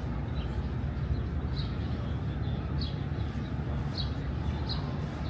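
Outdoor waterfront ambience: a steady low rumble with a handful of short, high bird chirps spread about a second apart.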